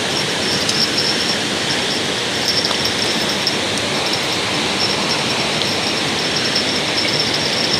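Steady rushing of fast river water, with a faint high hiss that comes and goes above it.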